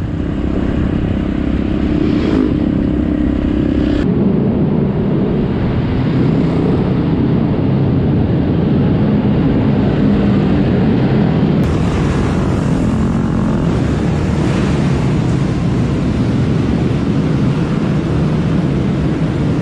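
Four-stroke 450 supercross bike engine running at low, steady speed, close to the rider. The sound changes abruptly twice, about four seconds in and near the middle.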